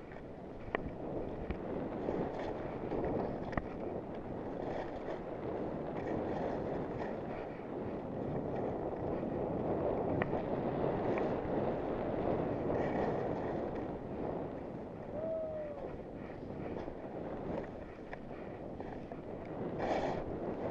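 Wind buffeting the microphone while skiing downhill, mixed with the hiss and scrape of skis running over packed and bumpy snow. A few faint clicks are heard.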